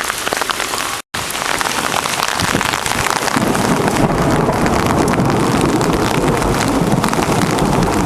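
Heavy rain pattering on an umbrella, broken by a brief dropout at an edit about a second in. From about three seconds in a low rumble of thunder builds under the downpour and holds to the end.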